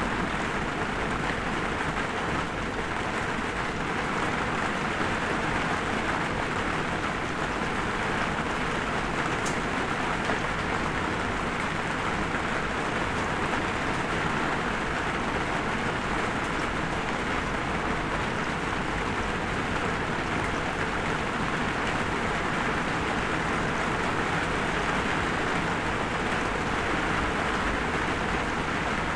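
Light rain falling steadily, an even unbroken hiss of drops.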